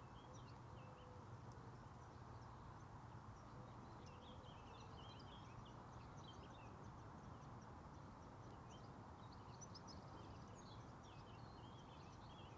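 Near-silent outdoor ambience: distant small birds chirping and twittering on and off, over a faint steady low background hum.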